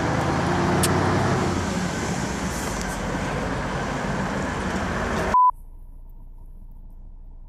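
Steady motor vehicle and engine rumble, cut off suddenly about five seconds in by a short, loud single-pitch beep. After the beep only a faint low hum remains.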